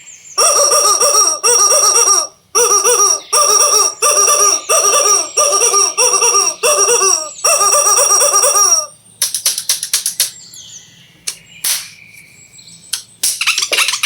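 A looping electronic jingle of short warbling notes, repeated in quick phrases about one and a half times a second for roughly the first nine seconds. It cuts off and gives way to scattered sharp clicks, with a burst of rustling near the end.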